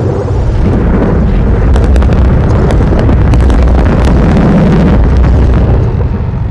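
Loud, dense noise passage of contemporary chamber music from an ensemble with accordion and percussion run through electronics: a deep sustained rumble and held low tones, with crackling clicks through the middle. It eases off near the end.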